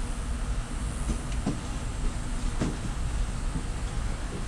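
A large cardboard box being lifted and shifted, giving a few light knocks and scrapes over a steady low rumble.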